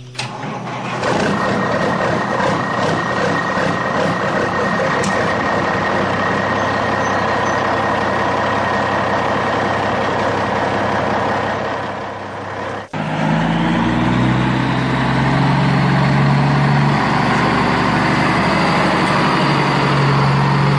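Heavy truck engine sound running steadily; about two-thirds of the way through it breaks off for an instant and gives way to a lower, steady idling hum.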